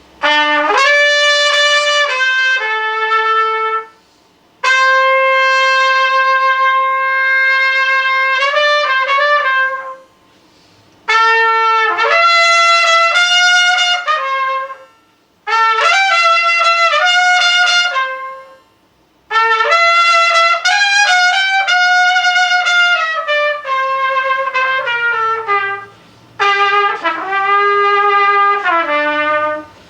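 A single wind instrument playing unaccompanied, melodic phrases of a few seconds each, with short breaks between them, some notes held long and others moving quickly.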